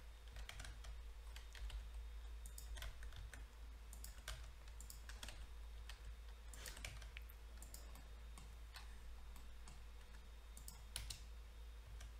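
Faint, irregular clicks of a computer mouse and keyboard being worked, scattered a few seconds apart, over a low steady hum.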